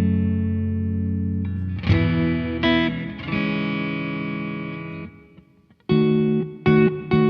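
Electric guitar played through a Blackstar JJN20 MkII amp, with chords left ringing out. After a short gap near the end come a few sharp, short chord stabs.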